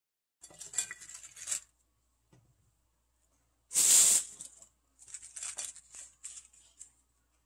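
Cut garlic chives rustling against a glass bowl as they are handled and spread by hand, in short bursts, the loudest about four seconds in.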